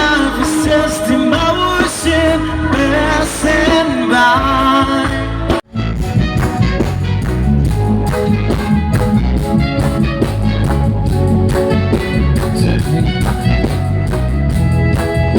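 Live band playing a slow love-song cover with a lead singer. About five and a half seconds in, the sound drops out for an instant, and then the band carries on with bass and drums and no lead voice.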